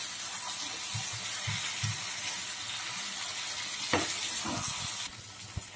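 Grated sweet potato sizzling as it shallow-fries in ghee in a kadhai, stirred with a spatula that scrapes and knocks against the pan, with a sharp tap about four seconds in. The sizzle drops quieter about five seconds in.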